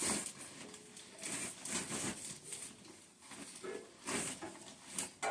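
Rustling and light knocks as an instrument case and its packaging are handled, in irregular short bursts.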